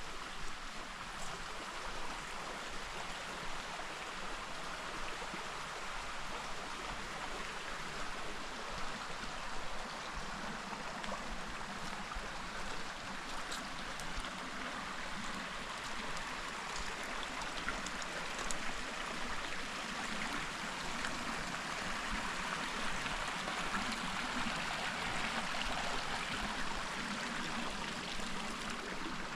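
Creek water flowing steadily over rocks, an even rushing with some trickling, a little louder in the second half.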